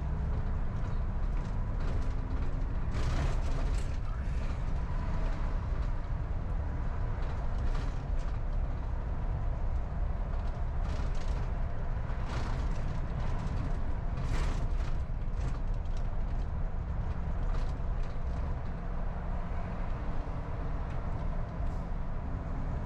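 Steady low rumble of a car driving along a city street, mostly road and engine noise, with a few brief louder hisses.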